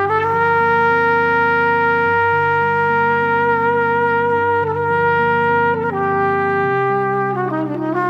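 Background music: one long held, bright note, stepping down to a lower note about six seconds in and then moving more near the end, over low sustained chords that change every second or so.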